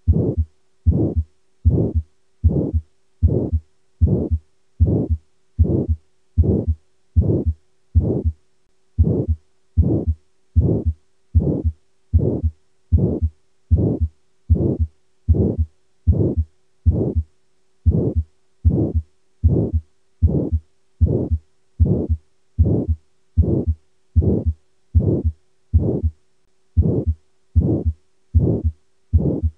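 Heart sounds of aortic stenosis: a regular heartbeat, a little faster than one beat a second, each beat carrying a systolic murmur, the sign of a narrowed aortic valve.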